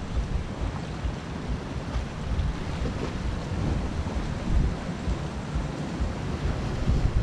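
Sea washing steadily against a rocky shore, with wind buffeting the microphone in irregular low gusts.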